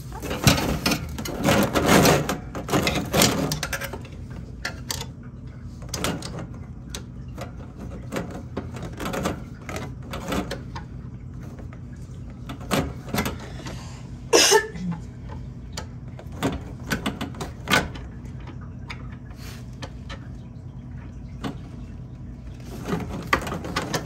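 Scattered clicks, knocks and rattles of a screwdriver and corrugated plastic drain hoses being handled at a dishwasher's hose fitting, with one sharper click about halfway through. A steady low hum runs underneath.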